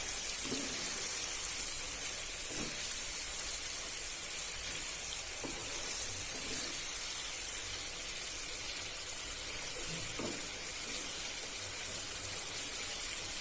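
Cauliflower curry with yogurt sizzling steadily in the pan, with a few light spatula knocks as it is stirred.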